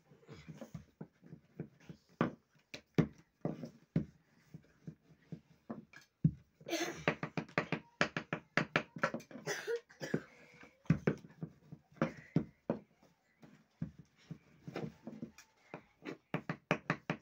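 Rolling pin knocking and clacking on a wooden board as dough is rolled out: a quick, irregular run of sharp knocks, busiest around the middle.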